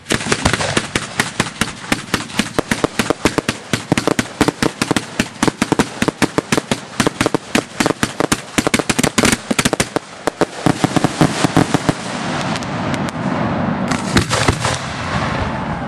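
Fireworks going off: a fast, dense run of sharp cracks starts suddenly and keeps going for about twelve seconds. It then gives way to a steadier rushing noise, with a short cluster of cracks near the end.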